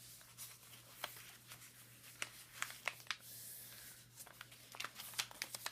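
Sheet of construction paper being folded and creased by hand into a paper airplane: scattered soft crinkles and crackles, coming thicker about four to five seconds in, over a faint steady hum.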